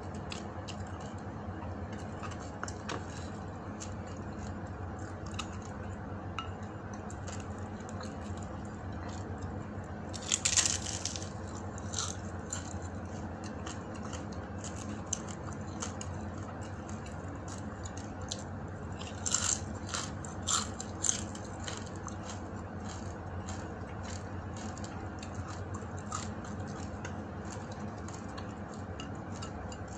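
A person chewing and taking crunchy bites of dried fish, with scattered clicks and a louder crackling crunch about ten seconds in and again around twenty seconds in, over a steady low hum.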